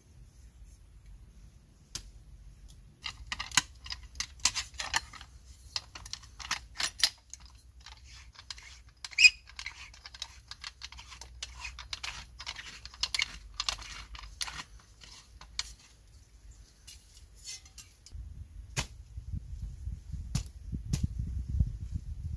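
Metal tools being handled, a folding shovel among them: quick runs of sharp clicks and scraping strokes, with a low rumble near the end.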